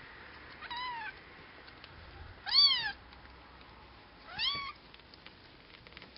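Nearly three-week-old Bengal kittens mewing: three short, high-pitched mews that rise and fall in pitch, about two seconds apart, the middle one the loudest.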